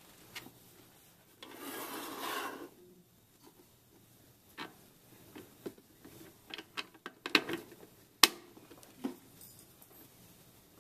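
A joystick control plate and its screws handled on a hard plastic case lid: a scraping rub lasting about a second, then scattered clicks and taps, the sharpest about eight seconds in.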